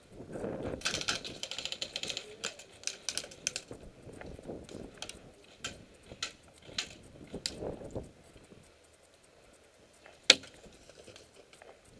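Rustling with scattered sharp clicks for most of the first eight seconds, then quieter, with one louder sharp click about ten seconds in.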